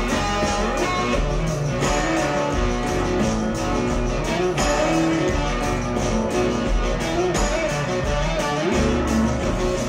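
Instrumental passage of a rock song: strummed guitars with bass and drums, no vocals.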